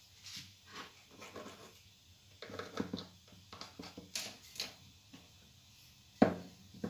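Soft rustling and tapping of hands pressing a sheet of puff pastry down over a pie dish. About six seconds in there is one sharp, loud knock, with a smaller one just after, as a wooden rolling pin comes down on the dish's rim to cut off the overhanging pastry.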